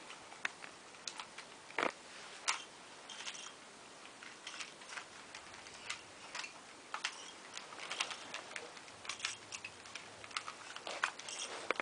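Rubik's cubes being twisted fast, their plastic layers turning in irregular runs of quick clicks and rattles.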